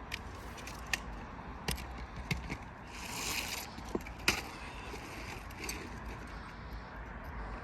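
Scattered sharp knocks and taps from hand work on asphalt roof shingles, at irregular intervals, with a short scrape about three seconds in.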